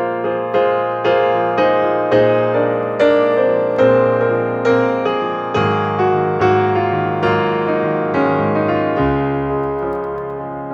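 Background music: a gentle piano melody, with notes struck about twice a second, each ringing and fading.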